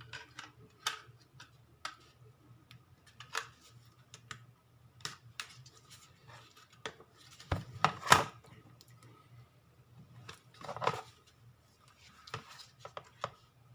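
Scattered clicks, taps and small knocks of a Crucial BX500 SSD and a universal laptop drive caddy being handled and pushed together by hand, the loudest knocks about eight and eleven seconds in, over a faint low hum.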